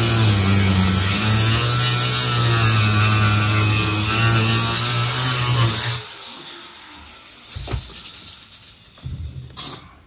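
Handheld power tool running steadily for about six seconds, its motor pitch wavering slightly under load, then cutting off suddenly; a few light knocks follow.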